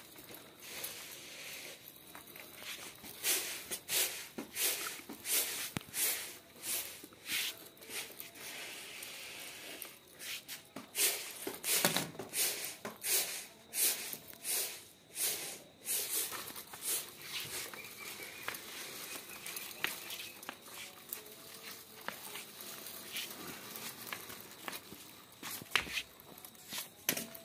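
Baby walker's small plastic wheels rolling and scraping over rough concrete in short, irregular rattling pushes.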